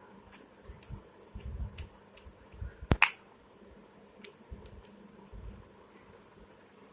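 Plastic clicks and taps as a flip phone's casing is handled and pried apart, with one sharp snap about three seconds in.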